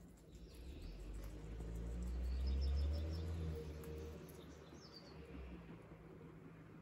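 A low rumble swells for about two and a half seconds and then fades. In the middle comes a quick run of five high chirps, and there is one more brief chirp about five seconds in.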